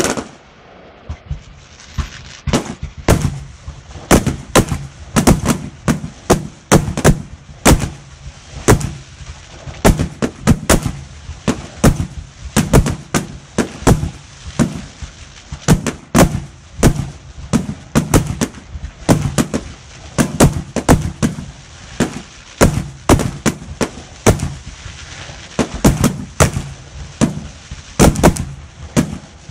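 Fireworks display: a dense, unbroken string of loud aerial shell bursts, several bangs a second, over a steady crackle.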